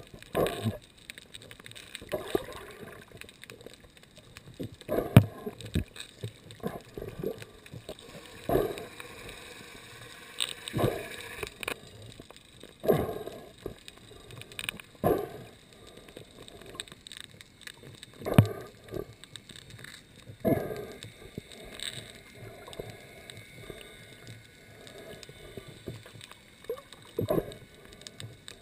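Muffled underwater sound picked up through a sealed GoPro dive housing: dull thuds of water and movement against the housing, about every two to three seconds.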